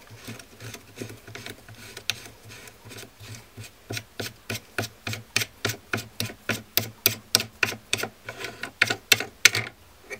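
Steel AR-15 barrel nut being turned off the upper receiver's threads by hand: a run of light metallic clicks with some rubbing, faint at first, then regular and sharper from about four seconds in, about three to four clicks a second.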